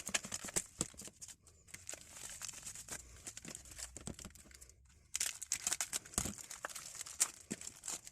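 Plastic packaging being crinkled and torn open by hand in rapid, irregular crackles, with a short pause about two-thirds of the way through.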